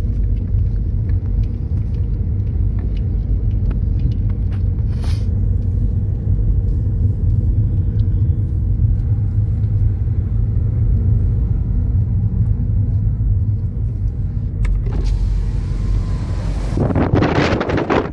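Car driving: a steady low rumble of engine and road noise, with faint scattered ticks. A louder rushing noise sets in near the end.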